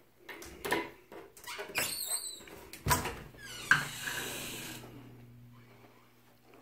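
A closet door being opened: several sharp clicks and knocks from the door and its latch, the loudest about three and a half seconds in, followed by a short fading rush of noise.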